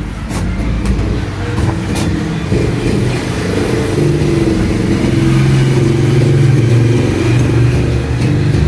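Royal household sewing machine running on its electric motor in a test run, with a few clicks at the start; its hum builds in speed and loudness over the first several seconds, then holds steady.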